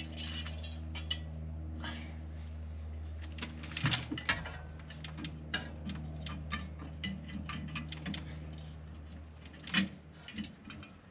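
Steel suspension parts and hand tools clinking and knocking as a leaf-spring helper pack is worked into place and lined up against the van's rear spring, with clusters of knocks about four seconds in and near the end, over a steady low hum.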